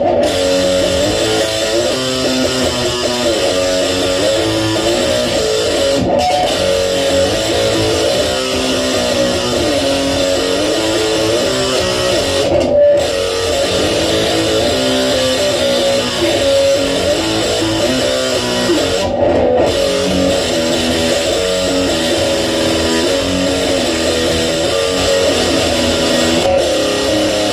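Electric guitar playing a continuous riff of changing notes.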